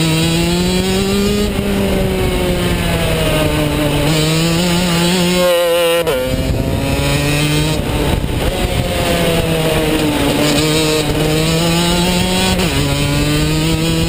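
Rotax DD2 125 cc two-stroke shifter kart engine at racing speed, heard from the driver's helmet. Its pitch climbs and falls as the kart works along straights and through corners, with a sharp lift-off and drop in pitch about six seconds in and another drop near the end.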